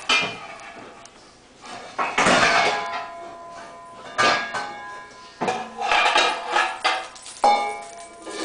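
A Basenji and a Cavalier King Charles spaniel play-fighting on a tile floor: several loud bouts of scuffling and dog play noises mixed with sharp clicks and knocks.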